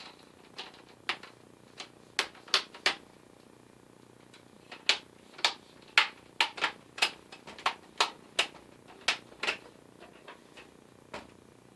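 Sharp plastic clicks and snaps, about twenty, irregularly spaced with some quick runs, from a laptop's plastic screen bezel being handled and pressed into place.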